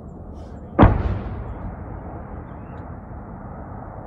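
A single loud artillery boom about a second in, followed by a long rumbling echo that slowly fades.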